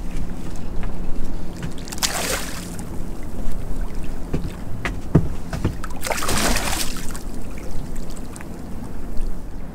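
Wind on the microphone and water slopping against a small open boat's hull, with two short bursts of hiss about two and six seconds in and a few light knocks in between.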